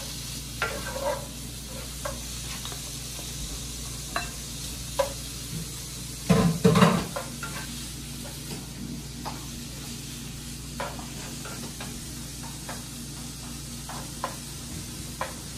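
Diced bacon sizzling as it renders in a frying pan, stirred with a spatula that scrapes and taps against the pan every second or two. A louder clatter comes about six to seven seconds in.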